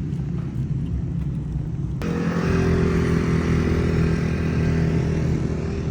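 ATV (quad bike) engine running steadily. About two seconds in it jumps abruptly louder and stays at a steady note.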